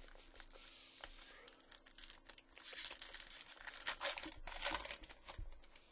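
A plastic trading card pack wrapper being torn open and crinkled by hand, crackling loudest in the middle stretch.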